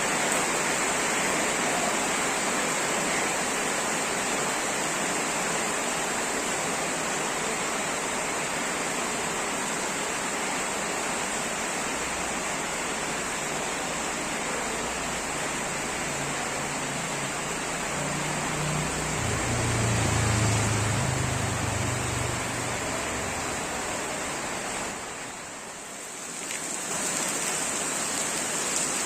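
Heavy rain pouring steadily, an even hiss. About two-thirds of the way through, a low hum swells and fades, and near the end the rain briefly drops quieter before returning.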